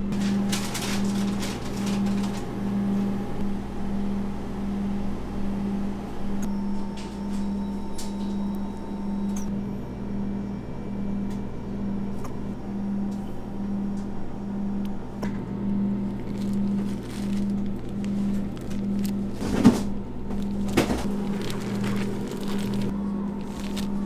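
Steady low machine hum that pulses about twice a second, with scattered light clicks and two sharp knocks near the end.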